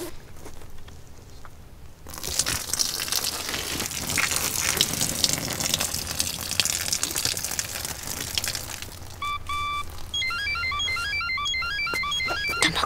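A rushing hiss sets in about two seconds in and runs on. From about nine seconds in, a string of short electronic beeps at changing pitches plays a quick tune, like a small electronic toy or device.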